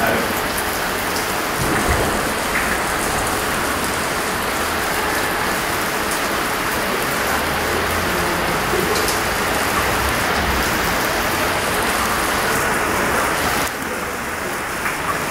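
Heavy rain pelting a paved street in a downpour: a steady, dense hiss of drops splashing on the wet road surface.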